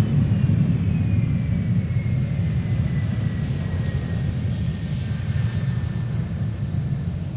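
Airliner jet engines rumbling and slowly fading as an Airbus A330 passes and moves away, with a thin high whine that slides down in pitch.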